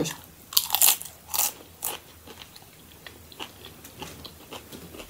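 A crunchy tortilla chip being bitten and chewed close to the microphone: a few loud crunches in the first two seconds, then quieter crunching chews.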